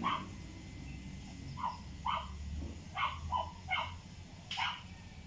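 A dog barking: a string of about seven short barks at uneven intervals.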